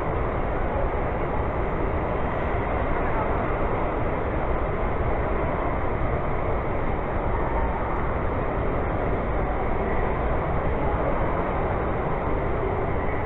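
Steady din of a crowded hall with people chattering, and a model freight train running past along its layout track.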